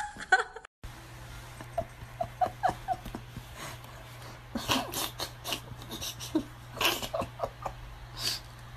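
A pet animal making a string of short, high squeaks and yelps, with sharp clicks in between and a steady low hum underneath. A brief loud sound cuts off abruptly under a second in.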